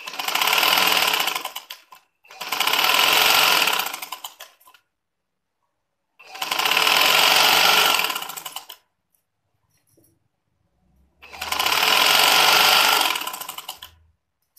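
Sewing machine running in four short bursts of stitching, each about two to three seconds long, speeding up and then slowing down, with a fast, even clatter of stitches and short pauses in between. It is sewing a line of stitching down the middle of a gathered, elasticated trouser waistband.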